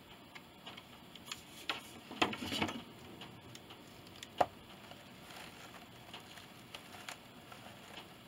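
Craft tools handled on a tabletop: a hot glue gun and scissors are moved and set down, giving scattered light ticks and clicks. There is a brief clatter about two seconds in and a single sharp tap a little after four seconds.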